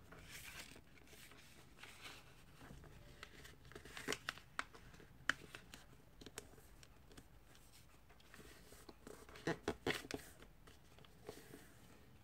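Faint rustling and crinkling of a sheet of paper being folded into a paper airplane's wings, with scattered sharp crisp crackles as the folds are pressed down, clustered about four to five seconds in and again near ten seconds.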